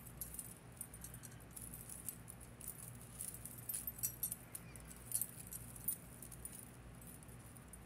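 Faint jingling and clinking of tangled fine metal necklace chains being picked apart by hand, with scattered light ticks.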